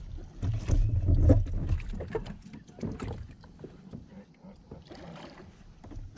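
Knocks and shifting on a kayak's hull as an angler stands and fights a hooked bass on a bent rod. A loud low thumping run comes in the first two seconds, then lighter scattered knocks and clicks.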